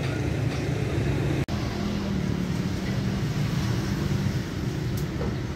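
Steady low mechanical rumble, like a running motor, that briefly cuts out about a second and a half in.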